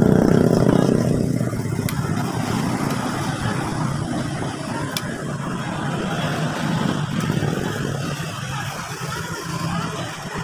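A motor vehicle engine running, loudest at the start and easing off after a second or two to a lower steady rumble. Two light clicks, about 2 and 5 seconds in, come from a small screwdriver working on an electric iron's thermostat contacts.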